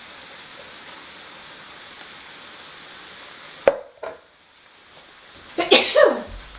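Ground beef and sausage sizzling steadily in a skillet, then a sharp clunk a little past halfway, after which the sizzle drops away. Near the end comes a short, loud vocal outburst.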